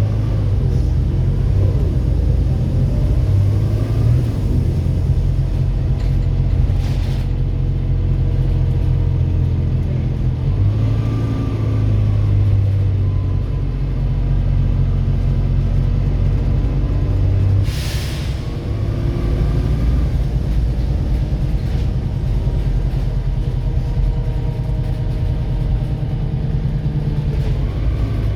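Volvo B7RLE bus's six-cylinder diesel engine pulling and easing off, its pitch rising and dropping several times through the gear changes. Two short air hisses come from the air system, about a quarter of the way in and again past halfway.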